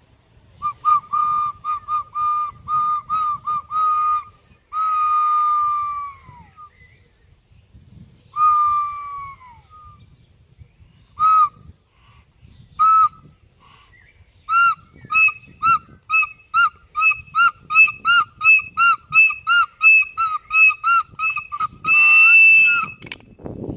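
A flute played in short repeated notes on one high pitch, with two longer notes that droop in pitch at their ends, then a quick run of short notes of about two a second ending on a long, loud held note.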